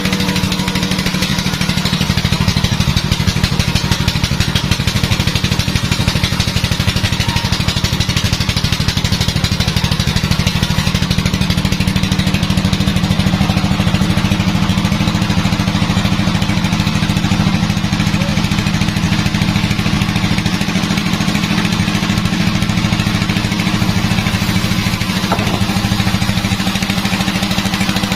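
Sawmill machinery running steadily, a constant engine-like hum with no change in pitch.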